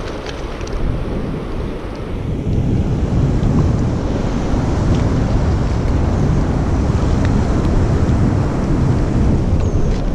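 Rushing river current with wind buffeting the microphone: a loud, steady, deep rumbling noise that grows louder a couple of seconds in.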